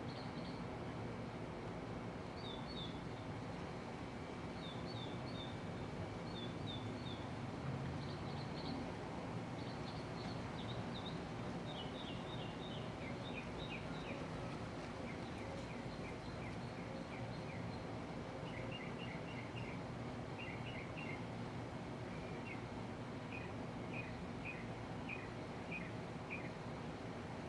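Fasco World's Fair model 962CB six-blade ceiling fan running with a steady hum and rush of air. Short high chirps come in quick clusters every second or two over it.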